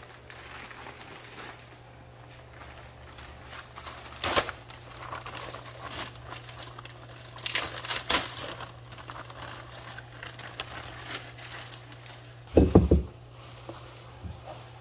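Plastic packaging wrap crinkling and rustling in short bursts as a carbon-fibre air intake is unwrapped, with a heavy thump near the end.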